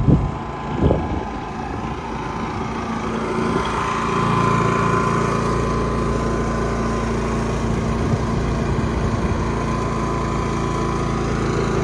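Portable inverter generator's small gasoline engine running steadily, a little louder from about four seconds in, with two short knocks in the first second.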